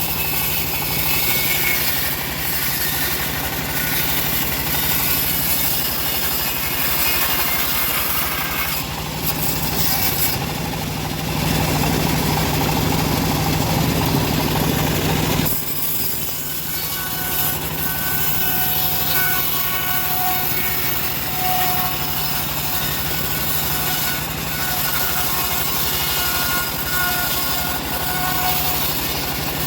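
Wood-cutting bandsaw running steadily with a machine hum. About ten seconds in the sound grows fuller and louder, then drops off suddenly about halfway through.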